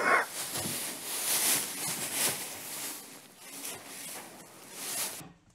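Straw bedding rustling and crunching under a weanling foal's hooves and a person's boots as the foal shifts and backs up on a lead rope. The rustling cuts off suddenly shortly before the end.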